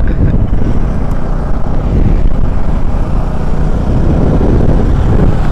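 Motorcycle running while being ridden, heard as a steady low rumble of engine and wind.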